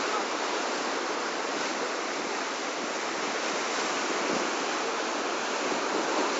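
Ocean surf breaking and washing against a rocky shore: a steady rush of sea noise.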